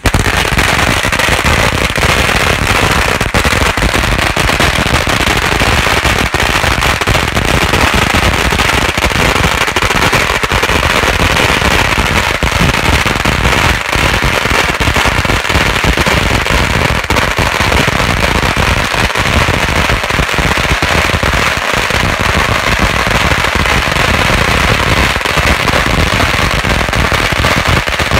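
A long string of red firecrackers going off in a dense, continuous rapid-fire crackle of bangs that starts suddenly and never lets up.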